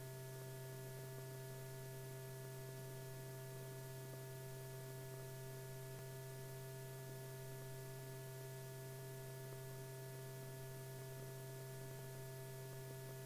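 Steady low electrical hum with several fainter higher tones above it and a light hiss, unchanging throughout: the background hum of an old film soundtrack, with no other sound.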